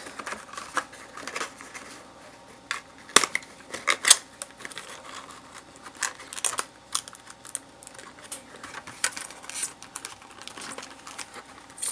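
Cardboard booster box being folded and pressed by hand: irregular clicks, taps and scrapes of card, with sharper snaps about three and four seconds in.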